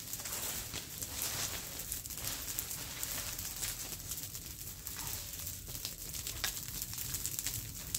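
Dry brush burning in an open pile, crackling with many small irregular pops, along with dry branches and weeds rustling and crunching as they are gathered and thrown onto the fire.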